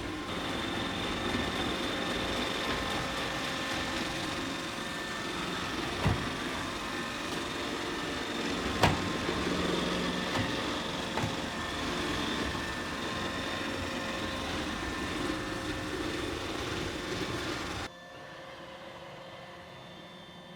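Roomba 800 Series robot vacuum running: a steady whir with a thin whine over it, and three sharp knocks in the middle. The noise drops off abruptly about three seconds before the end.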